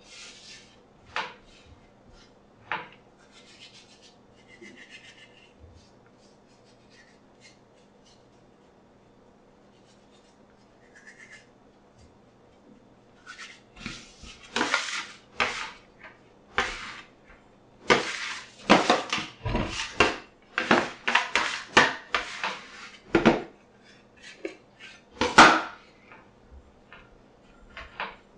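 Metal bench scraper scraping and knocking against a stainless steel countertop while gathering crumbly pasta dough. It starts with a few scattered knocks, then comes in quick runs of strokes through the second half.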